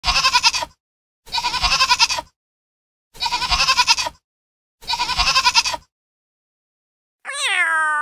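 A goat bleating four times, each call about a second long and quavering, with short gaps between. Near the end a cat starts a meow that falls in pitch.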